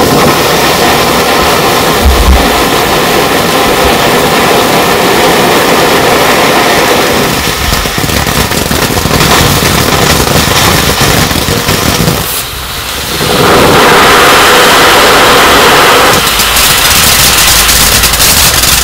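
Lesli Essentials 'El Diablo' ground firework fountain spraying sparks with a continuous loud rushing hiss. It dips briefly about twelve seconds in, then swells louder for a few seconds.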